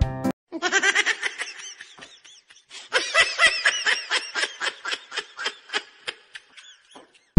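A person laughing in quick repeated bursts: a short run of laughter, then after a brief pause a longer one that trails off.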